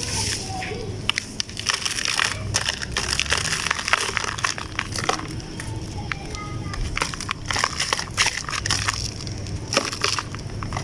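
Damp chunks being crumbled and broken apart, a dense run of irregular crunches and crackles.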